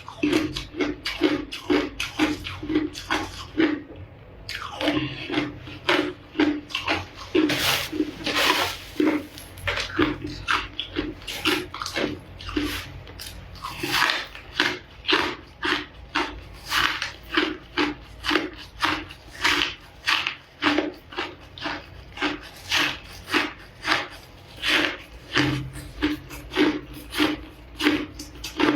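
Ice being bitten and chewed close up, a steady run of sharp crunches about two to three a second.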